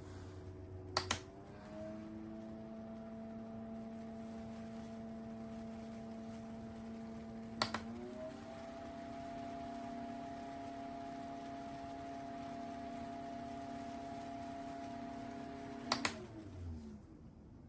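Small battery-powered desk fan running with a steady motor hum. Button clicks about a second in and about halfway through change its speed, the hum shifting to a higher pitch, and a click near the end switches it off, the hum sliding down as the blades spin down.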